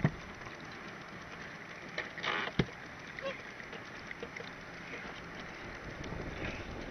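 Crabs and a crab pot being handled on a boat deck: a short scrape, then one sharp knock about two and a half seconds in, with a few light clicks, over steady wind and water noise.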